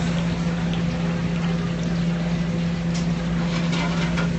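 Steady low mechanical hum and rush of commercial kitchen equipment, with a few light taps about three seconds in as the fried dumplings are set into a ceramic dish.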